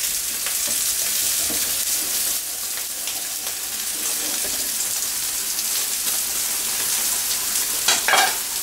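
Potato wedges deep-frying in a saucepan of hot oil: a steady sizzling hiss as the par-fried wedges go back in for their second frying. A brief louder sound comes near the end.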